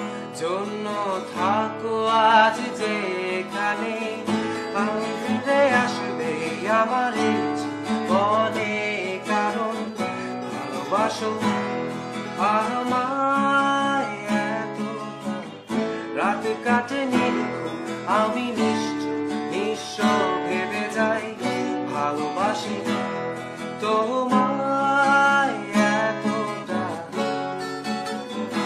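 Music: a strummed acoustic guitar accompaniment with a gliding melody line over it.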